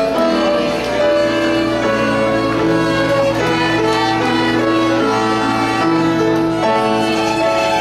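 A small ensemble of young violin students playing an allegro together, bowed notes following one another at a steady pace.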